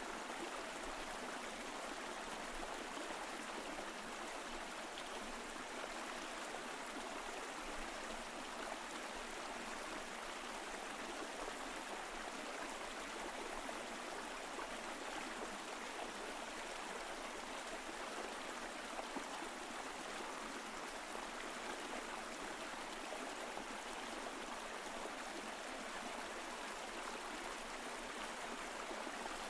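Mountain stream flowing over rocks, a steady rushing and trickling of water.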